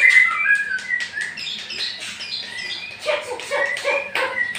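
Caged songbirds chirping and singing in quick, varied phrases, with sharp clicks in between.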